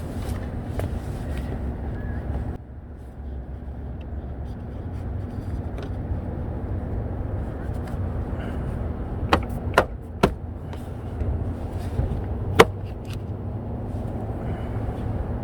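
Sharp clicks from mud flap hardware being fitted to a Tesla Model 3's wheel arch: three in quick succession, then one louder one a couple of seconds later. A steady low rumble with a faint hum lies underneath.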